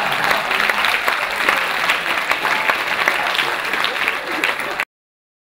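Audience applauding, with voices mixed in; the applause cuts off abruptly near the end.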